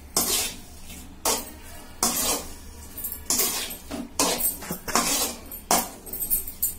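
Metal ladle scraping and clanking against a steel kadai as fried chicken manchurian and vegetables are tossed together, in irregular strokes one or two a second.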